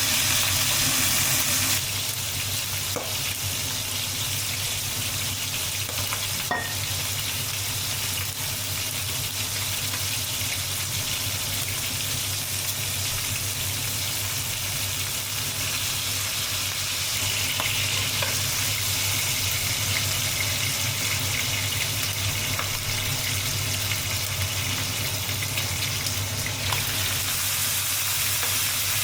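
Food sizzling in a hot pan as it is stir-fried. A few light clicks of a utensil against the pan come through here and there.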